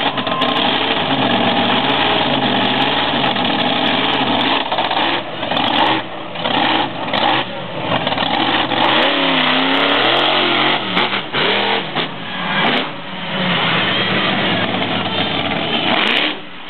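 Monster truck's engine revving, its pitch rising and falling again and again, with several short drops in throttle, including a big rev up and back down about nine seconds in.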